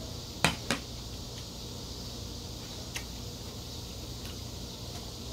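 Tableware clinking: metal chopsticks and a ceramic rice bowl, two sharp clinks about a quarter-second apart about half a second in, then a few faint ticks over a low steady hum.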